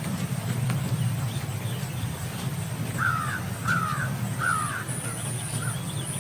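A bird calling: a series of about five short calls, a little under a second apart, starting about halfway through, over steady low background noise.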